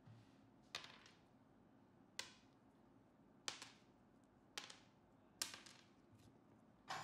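Faint sharp clicks and taps, about six of them at roughly one-second intervals, as small hard cast pieces are popped out of a flexible silicone mould and set down on a wooden tabletop.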